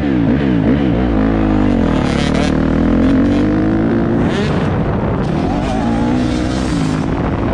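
Off-road motorcycle engine running under throttle, its pitch rising and falling several times as it revs and shifts.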